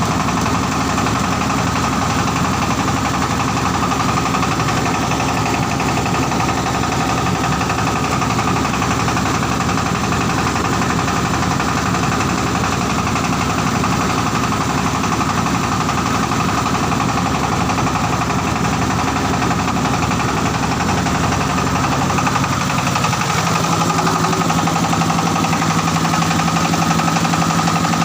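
Shark diesel engine of a mobile rice mill running steadily. About three-quarters of the way through, its note shifts and settles at a new steady pitch.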